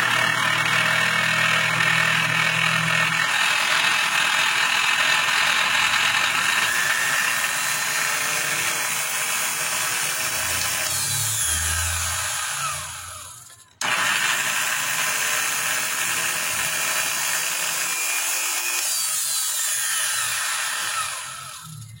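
Bosch GWS 22-180 large angle grinder switched on and running at full speed, then switched off and spinning down. It is started again about 14 seconds in, runs, and spins down again near the end. It is being run to track down a strange noise it makes.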